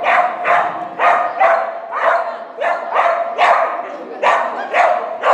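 Dog barking over and over in an even rhythm, about two barks a second.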